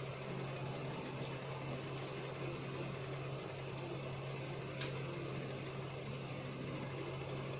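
A steady low machine hum with one faint click about five seconds in.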